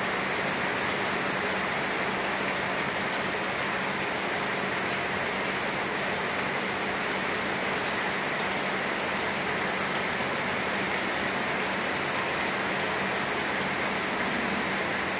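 Steady rain falling, an even hiss of drops that keeps on without a break.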